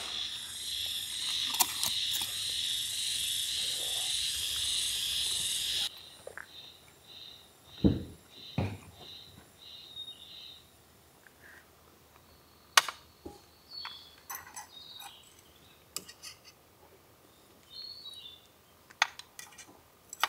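Insect chorus, a loud steady buzzing with a pulsing trill, which cuts off abruptly about six seconds in; after it, fainter repeated chirps fade out. A dull thump comes about eight seconds in, and a few light knocks and clicks follow.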